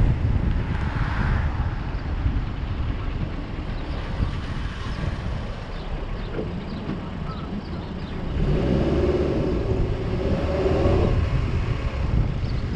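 Road traffic with wind noise on the microphone: a steady low rumble, with a louder vehicle passing from about eight and a half to eleven and a half seconds in.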